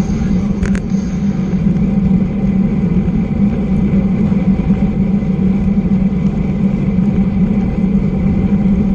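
Steady wind rush and tyre roar from a road bicycle riding on asphalt at about 22 mph, with a strong low hum. A short click comes about a second in.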